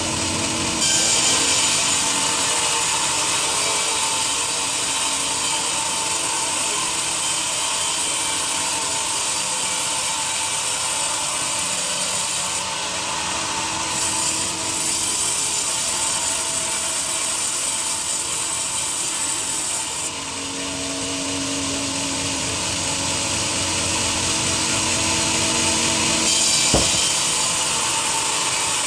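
Sawmill saw cutting lengthwise through a teak log: a steady rasping hiss that rises as the blade bites about a second in, eases off twice for a moment and for a few seconds later on, then comes back, with a single knock near the end.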